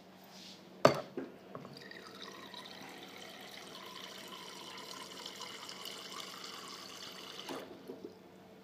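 Whirlpool Sense 6 refrigerator: one loud sharp click, then a steady hiss like running liquid for about six seconds that stops near the end with two small knocks.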